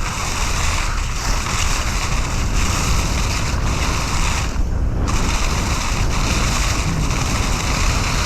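Mountain bike tyres rolling fast through a thick layer of dry fallen leaves, a continuous loud rustling crunch, with wind buffeting the microphone as a low rumble. The hiss thins briefly about four and a half seconds in.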